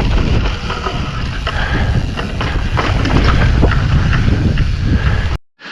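Wind buffeting the microphone over the rumble of a full-suspension mountain bike's tyres on a rough, rocky descent, with frequent clicks and knocks from the bike rattling over the ground. It cuts off abruptly near the end.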